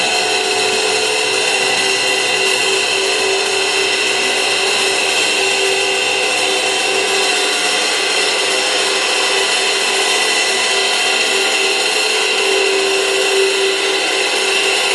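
Several suspended cymbals played continuously, making a loud, steady, unbroken wash of metallic noise with a few ringing pitches held throughout; no separate strikes stand out.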